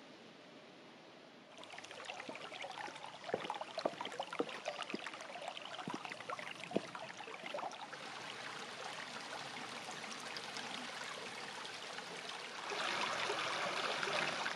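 Running water trickling and splashing, with scattered sharp drips and splashes. It starts abruptly a little under two seconds in and turns louder and fuller near the end.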